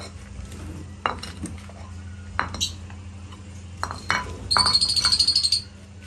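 Terracotta clay feeding bowls clinking as they are set down one at a time on a concrete floor, then a loud burst of rapid lovebird chattering for about a second near the end. A steady low hum runs underneath.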